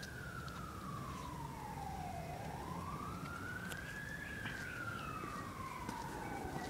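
A siren wailing in a slow rise and fall: its pitch glides down for about two seconds, climbs back over the next two, then falls again.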